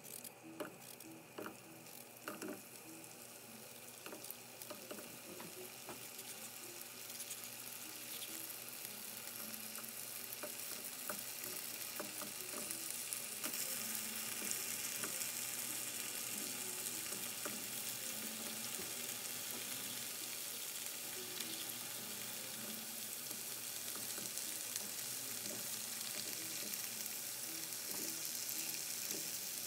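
Potato sticks sizzling in hot oil in a frying pan as they are sliced straight in. The sizzle grows louder over the first dozen seconds as more pieces drop in, then holds steady.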